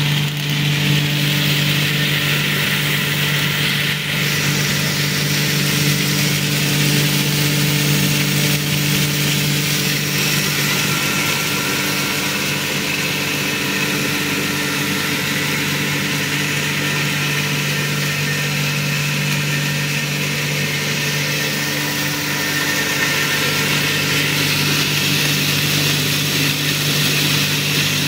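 Electric cereal mill running steadily, grinding grain: a constant motor hum with an even hiss of the milling over it.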